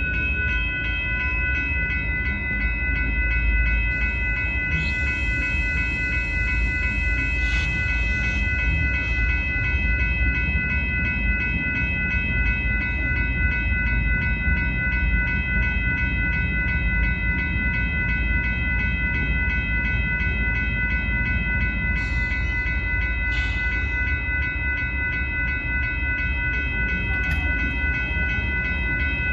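Railroad grade-crossing warning bell ringing at an even rhythm over the low rumble of a nearby train, with two short hissing swells partway through.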